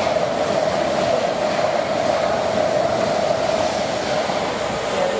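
A train running along the rails: steady rail noise with a single held tone over it, easing off slightly near the end.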